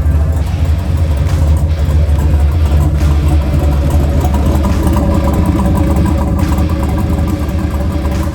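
Turbocharged 6.0-litre Chevy V8 truck engine running at a steady speed, without revving up or down.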